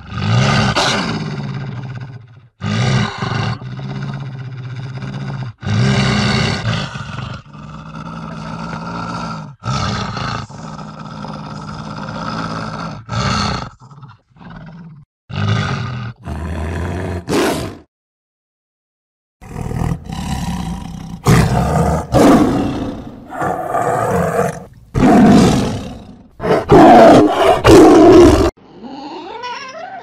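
A large predator growling and roaring in a long series of separate calls, each lasting up to a couple of seconds, with a short pause a little past halfway and the loudest calls near the end.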